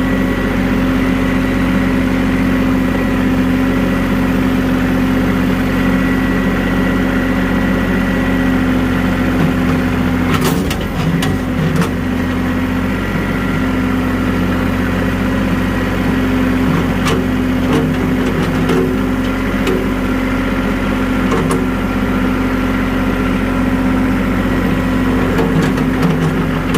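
Vehicle engine running steadily at low speed under load while towing a skid steer on a chain. A few sharp knocks or clanks come a little under halfway through, with lighter ticks later.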